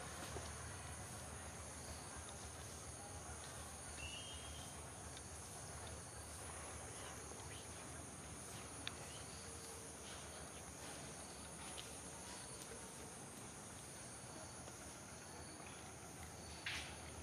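Steady high-pitched insect chorus from the forest, with a few faint clicks, the loudest near the end.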